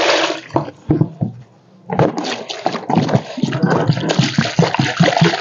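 Water splashing out of a tipped plastic basin, then a few knocks. From about two seconds in, water pours from a plastic jerrycan into a metal pot in an uneven, splashing stream.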